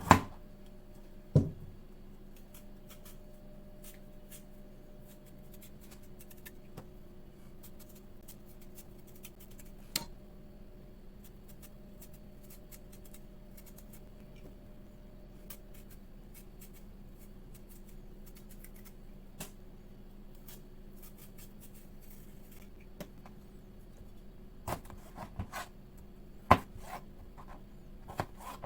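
Kitchen food-preparation sounds: a few sharp knocks and clicks of utensils, with a cluster near the end, over a steady low hum.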